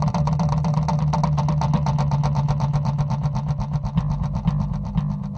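Electric bass guitar playing very fast repeated low notes, a dense steady pulse on one low pitch that thins out about four seconds in.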